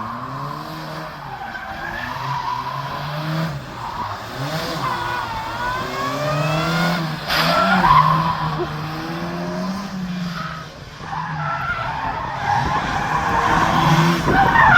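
Car engines being revved hard, the engine note rising and falling as the revs climb and drop, with tyres skidding and squealing.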